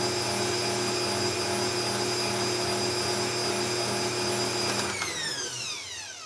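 Bosch Compact Kitchen Machine stand mixer running steadily with a motor whine as its whisk beats cake batter. About five seconds in it winds down, the whine falling in pitch as the motor stops.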